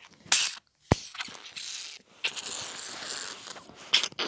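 Plastic ratcheting clicks and rattling as an Optimus Prime action figure's joints and parts are moved by hand, with a sharp knock about a second in.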